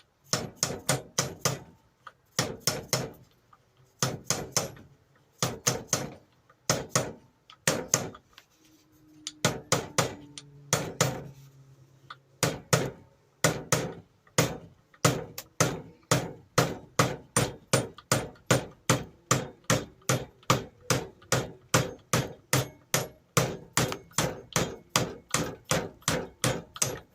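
Hammer tapping repeatedly on metal, first in short clusters of quick blows, then from about halfway a steady run of about three blows a second. It is tapping a polishing wheel onto a bench grinder's shaft.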